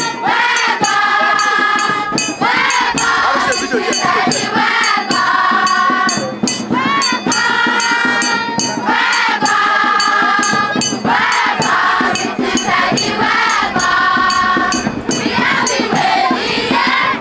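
A group singing in chorus to a steady beat of hand percussion, about three strokes a second.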